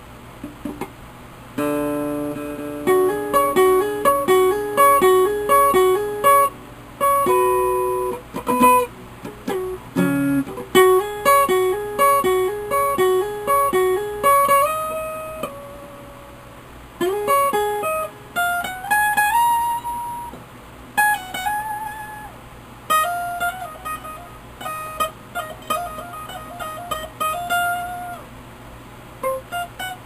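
Jay Turner Stratocaster-style electric guitar played through a bass amp: single picked notes in quick melodic runs, with short pauses and a note slid upward partway through. A steady low hum sits underneath.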